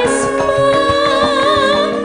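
A sinden, a female Javanese singer, singing a wavering held line over gamelan accompaniment with steady metallophone tones and regular drum strokes.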